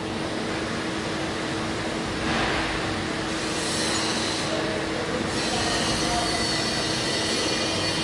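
Factory machinery ambience: a steady low hum under a dense mechanical rush, swelling louder about two seconds in, with thin high-pitched metallic squeals joining from about halfway.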